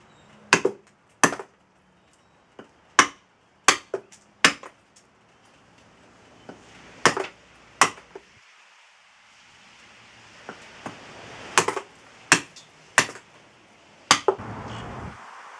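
A file-sharpened hand axe, a reshaped 3.5 lb felling-axe head on an ash handle, chopping into a very dry, seasoned piece of Osage orange on a chopping block. About a dozen sharp strikes come at irregular intervals, some close together in pairs, with a pause of a couple of seconds midway.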